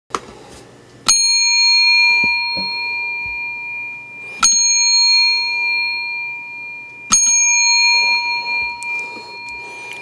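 A bell struck three times, about three seconds apart. Each stroke rings on in several clear tones and slowly dies away.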